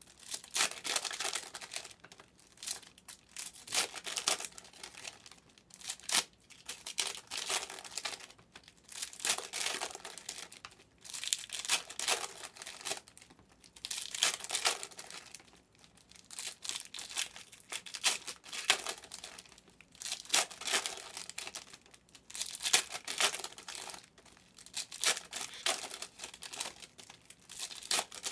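Foil trading-card pack wrappers being torn open and crinkled by hand, in repeated short bursts every second or two.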